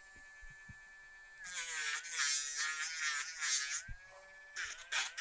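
Small cordless rotary nail grinder whining at speed, then grinding down a dog's toenail twice. The first grind starts about a second and a half in and lasts about two seconds; the second starts near the end. The motor pitch wavers and dips as the bit bears on the nail.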